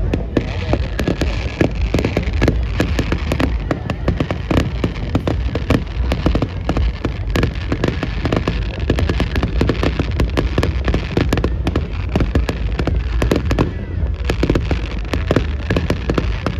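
Bonfire crackling and popping: a dense, irregular run of sharp snaps over a steady low rumble of the burning fire.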